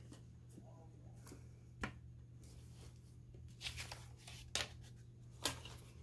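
Paper and craft pieces being handled on a tabletop: a sharp tap, then a run of short papery rustles and taps in the second half.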